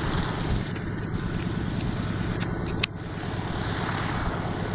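Vought F4U Corsair's Pratt & Whitney R-2800 radial engine running at low power on landing approach, a steady low drone. A single sharp click about three seconds in.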